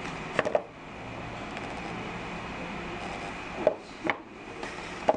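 Shoes being handled and shifted on a hard tabletop: a few short knocks and taps, two about half a second in and a few more near the end, over a steady background hum.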